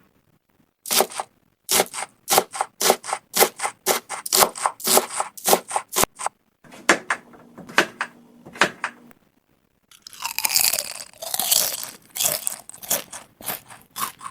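Food sound effects from an editing app's library playing one after another. First comes a rapid run of crisp crunching bites for about five seconds, then other short food sounds, the loudest a hissing, fizzy one about ten seconds in.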